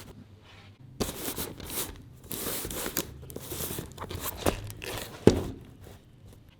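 Irregular crinkling and rustling with scattered sharp knocks, the loudest knock about five seconds in, like something being handled and set down.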